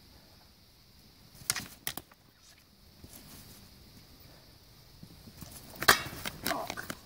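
Practice swords clacking in full-contact sparring: two quick sharp clacks about a second and a half in, then a louder flurry of strikes near the end as the fighters close.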